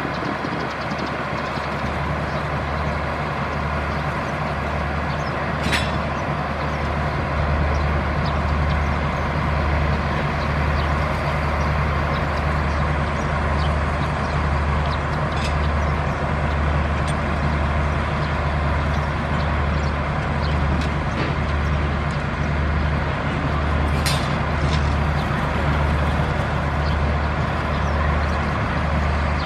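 Alsthom diesel-electric locomotive's diesel engine running with a deep, steady throb, growing louder about seven seconds in as it pulls the train slowly. Two brief sharp sounds stand out, one near the start and one near the end.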